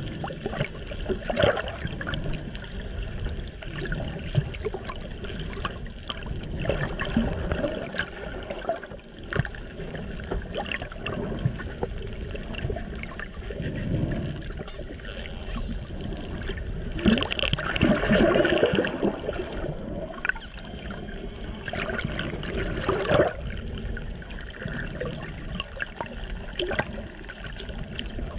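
Underwater sound of a pod of spinner dolphins: a few high whistles sliding in pitch, one rising about five seconds in and another about twenty seconds in, over click trains and a constant rush of water noise, with louder noisy bursts of clicks and bubbles now and then.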